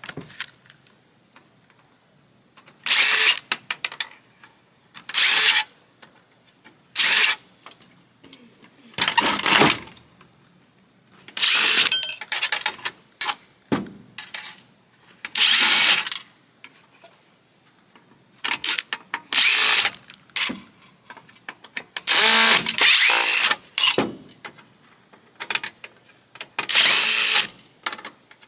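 Power drill running in about ten short bursts of half a second to a second each, backing screws out while the oscilloscope is dismantled for scrap.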